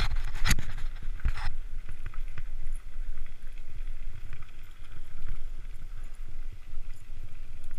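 Mountain bike rolling over a gravel trail, heard from a camera mounted on its handlebar: a steady low rumble of tyre and ride noise, with a few sharp knocks in the first second and a half.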